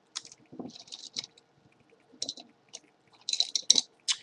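Hands rummaging through small objects in search of bobby pins: irregular short rustles and light clicks, busiest about three and a half seconds in.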